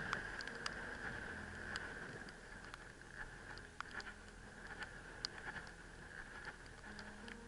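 Footsteps and trekking-pole taps on a rocky gravel path: irregular crunches and sharp clicks, several a second, over a steady hiss.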